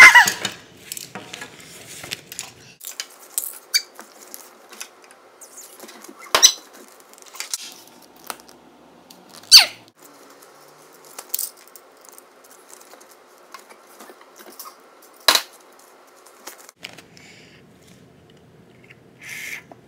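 A child's short, high falling squeal at the start, then scattered sharp clicks, clacks and short squeaks of plastic Hot Wheels cars and track pieces being handled, three of them much louder than the rest, over a faint steady hum.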